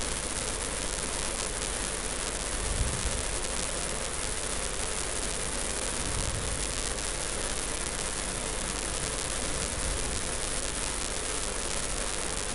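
Onions, green chillies, curry leaves and ginger paste frying in hot oil in a kadai: a steady sizzle.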